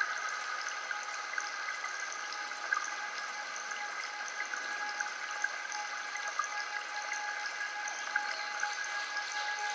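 Several steady ringing tones held at once over a soft, even running-water hiss with scattered faint ticks, as in a sound-healing drone track.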